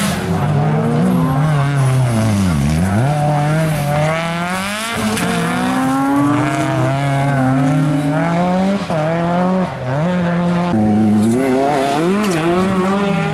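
Mitsubishi Lancer Evolution rally cars driven hard on tarmac. The engine's note climbs and drops again and again through gear changes, plunging low about two and a half seconds in before climbing back. A second car comes in about three-quarters of the way through.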